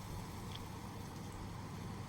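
Wind rumbling on the microphone over a steady hiss of light rain, with two faint short high chirps.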